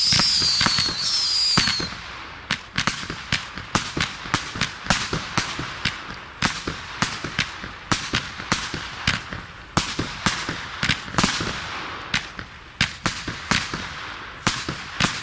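An 82-shot firework battery (cake) firing. Shrill, wavering whistles sound for about the first two seconds, then give way to a rapid run of sharp bangs, roughly two or three a second.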